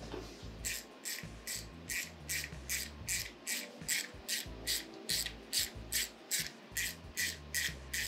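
Hand ratchet being worked back and forth on a bolt of a VQ35DE V6 engine, giving a rapid, regular run of rasping strokes, about three a second, that starts just under a second in.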